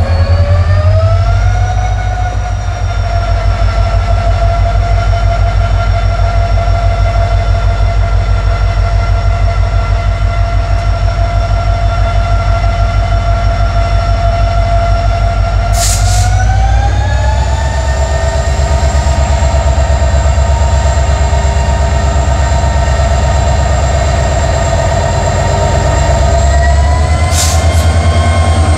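EMD WDP4-class diesel locomotive pulling away under power: a loud, pulsing engine rumble under a whine that rises in pitch in three steps, at the start, about 17 seconds in and near the end, as the throttle is notched up. Two brief sharp hisses come through about 16 and 27 seconds in.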